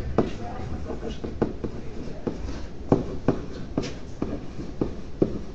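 Stylus tapping and scraping on a pen tablet while handwriting: irregular short clicks, a couple a second, over a steady low hum.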